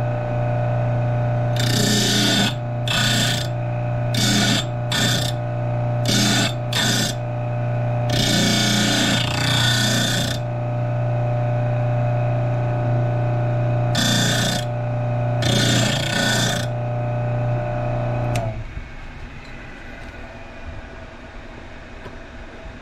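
A small bench-grinder motor hums steadily while a 1/4-inch twist drill, held in a drill-sharpening jig, is pressed against the grinding wheel in about nine grinding passes. Most passes are short; the longest lasts about two seconds. The motor hum cuts off about eighteen seconds in.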